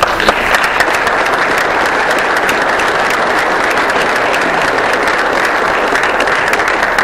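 Audience applauding, many hands clapping at a steady level, tailing off near the end.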